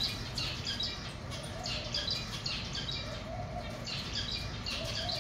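Aviary birds chirping over and over in short high calls, with a few lower drawn-out calls in between.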